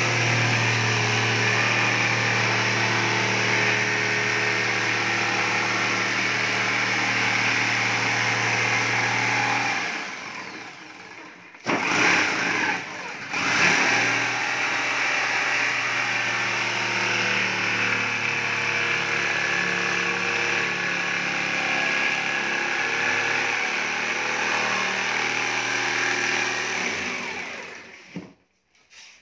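Corded electric jigsaw cutting through a sheet of plywood, its motor running steadily. It stops about ten seconds in, restarts with two short bursts, runs on, and stops shortly before the end.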